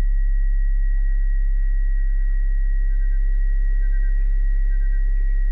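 A steady low electrical-sounding hum with a thin, steady high-pitched whine above it, and faint short chirps in little groups of two or three about once a second.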